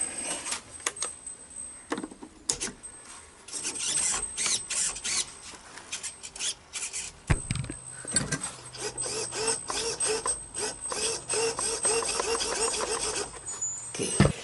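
Small radio-control servos in a model steam boat whirring briefly again and again, about three times a second, in the second half as the rudder and controls are worked back and forth by the transmitter. Clicks and knocks of handling come before.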